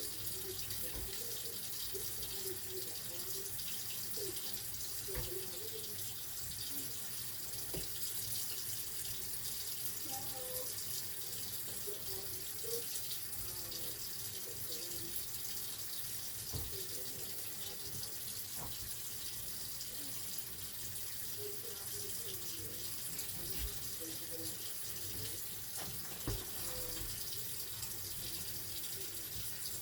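Tap water running steadily into a kitchen sink while raw chicken is rinsed and trimmed, with occasional light knocks of handling.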